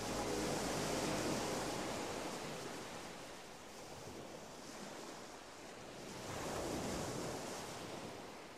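Waves washing in, a rushing surf that ebbs and swells again about two-thirds of the way through. The last notes of music fade out in the first second.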